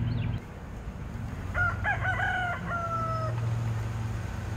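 A rooster crowing once: a few short notes followed by a long held note that falls slightly, over a steady low hum.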